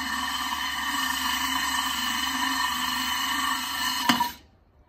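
Cordless drill spinning a diamond core bit through the bottom of a flower pot, a steady whine with a grinding hiss. A click about four seconds in, then the drill stops suddenly.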